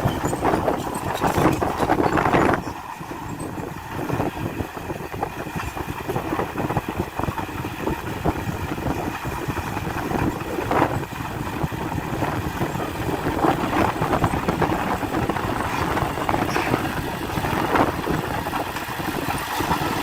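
Diesel engine of heavy earthmoving machinery running. It is louder for the first couple of seconds, drops about two and a half seconds in, then runs steadily with a few brief swells.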